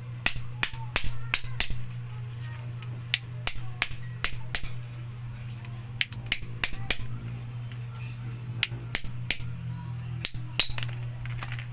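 A steady low hum, plausibly the motor of a Juki sewing machine running, with many sharp clicks and taps at irregular intervals throughout.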